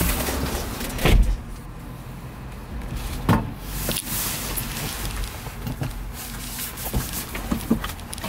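A heavy thump about a second in, a second knock about two seconds later, then a few light clicks and knocks inside the small cab of a parked ZEV T3-1 electric trike.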